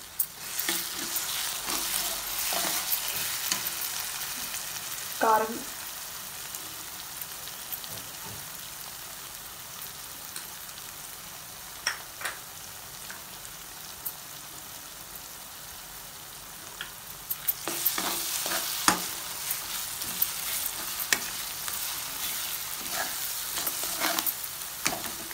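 Chopped onions and ground spices frying in oil in a non-stick kadai, with a steady sizzle. A metal spatula stirs and scrapes against the pan, with a run of clicks and scrapes in the first few seconds and again during the last eight seconds or so.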